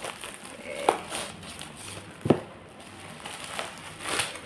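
Plastic wrapping crinkling and rustling as plastic food tubs are unwrapped and handled, with two sharp knocks about a second in and just past two seconds, the second the loudest, and a louder rustle near the end.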